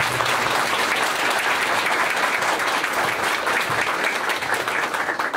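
Audience applauding steadily with many hands clapping, the applause beginning to die down at the very end.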